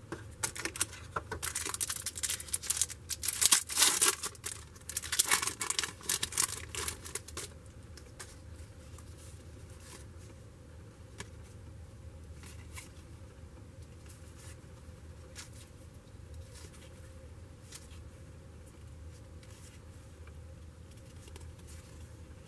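A trading-card pack wrapper being torn open and crinkled, in a run of rustling and tearing for the first seven seconds or so. After that only a few faint light clicks.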